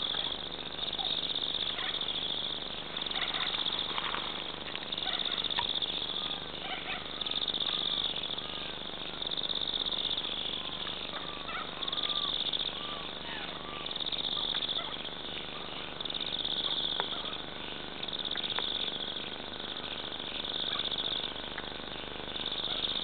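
Dusk insect chorus: a high-pitched trill that swells and fades about every two seconds, with scattered short bird chirps.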